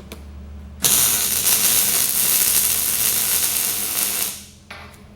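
Electric welding arc laying a tack weld on steel plate, starting abruptly about a second in, holding steady for about three and a half seconds, then dying away.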